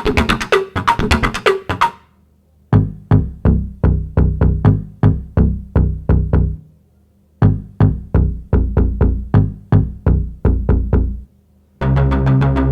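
Electronic music: quick, evenly spaced drum-machine-style hits that stop twice for under a second, then a sustained synthesizer chord with a steady bass near the end.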